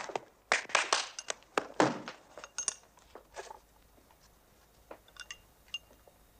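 Paper exam tickets being handled and shuffled on a wooden desk: a run of crisp rustles and crackles for the first three or four seconds. Then come a few faint light clinks of glass.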